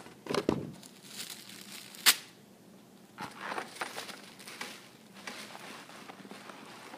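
Boxes and paper packaging being handled, rustling and crinkling. There are a few knocks near the start and a sharp click about two seconds in.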